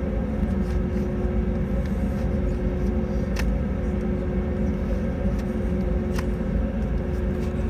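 Steady cabin noise inside an Airbus A320neo climbing after takeoff: a deep rumble from its Pratt & Whitney PW1100G geared turbofans and the airflow, with a steady mid-pitched hum running under it. Two faint clicks come through, one near the middle and one later.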